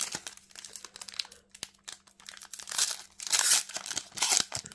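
Plastic trading-card booster pack wrapper crinkling and tearing as it is handled and opened by hand. The crackling is light at first and gets louder and denser in the second half.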